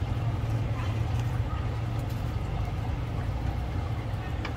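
Steady low motor rumble, with a faint click at the start and another near the end.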